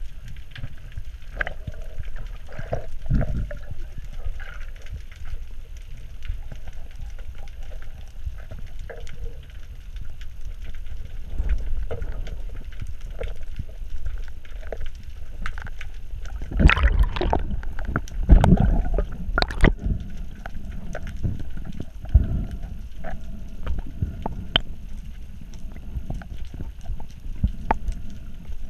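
Water noise heard through a GoPro's underwater housing: a low steady rumble with scattered small clicks, and a louder spell of gurgling water movement about two-thirds of the way through.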